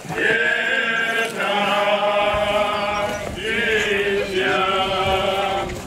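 Religious funeral chant sung during the procession, voices holding long notes in three phrases with short breaks between them.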